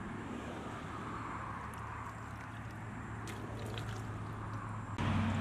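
Light splashing, squelching and dripping of muddy water as hands scoop small fish out of a shallow puddle, with a few sharp drips about three seconds in, over a steady low hum that gets suddenly louder near the end.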